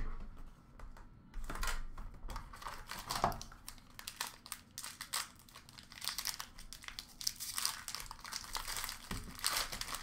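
Plastic wrapping on a trading-card box crinkling and tearing as it is opened by hand, in quick irregular crackles.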